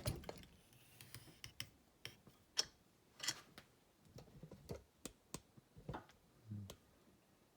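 Scattered light clicks and knocks of hard gear being handled and adjusted by hand, irregularly spaced, with a soft low thump near the end.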